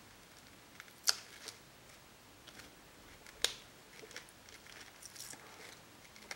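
Parts of a Seymour Duncan SH-13 Dimebucker humbucker pickup being handled and pulled apart by hand: small plastic clicks and light rustling, with two sharper clicks about a second in and about three and a half seconds in.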